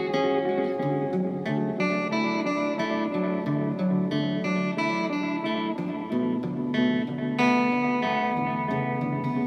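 Heraton 345H guitar picked in single notes and chords through an Echolette E51 tape echo, the notes ringing on; the echo unit is under test and not yet fully repaired.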